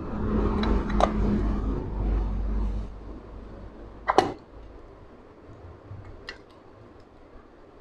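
Honda CG125 crankshaft being pressed by hand into its aluminium crankcase half: rubbing and handling noise with a couple of light clicks for the first few seconds, then a single sharp metal knock about four seconds in as it goes into place, followed by two faint clicks.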